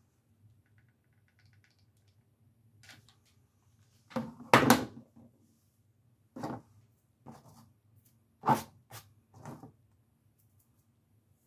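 Handling noise on a work table: a series of knocks and short rustles from objects being picked up and set down, the loudest about halfway through.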